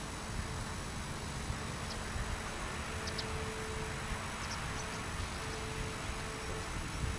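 Steady outdoor ambience on an open sports field: a continuous rumbling hiss with a few faint, high, short chirps near the middle.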